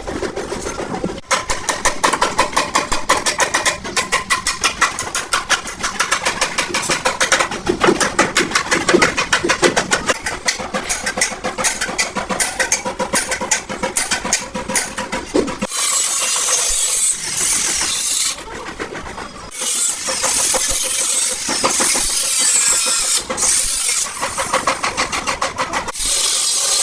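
Body-shop metalwork tools: a fast, even run of metal strikes, several a second, for about fifteen seconds, then bursts of loud hissing noise with short breaks between them.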